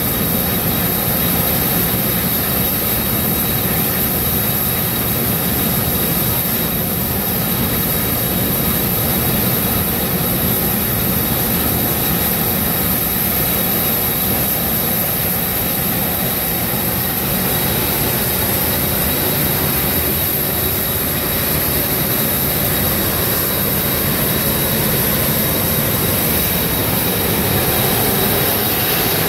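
High-pressure steam venting from a ruptured underground steam main, a loud, steady rush of noise that does not let up.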